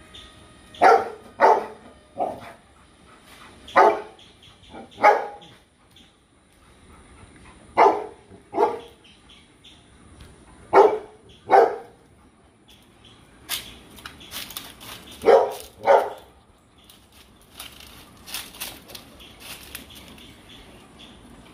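A dog barking, about a dozen short barks that mostly come in pairs with pauses between them. In the second half a faint scratchy rustling sounds between the barks.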